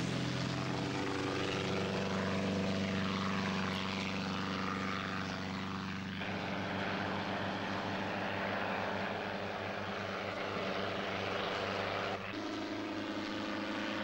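A light propeller aircraft's piston engine and propeller running at high power as a steady drone. The drone shifts pitch abruptly about six seconds in and again about twelve seconds in.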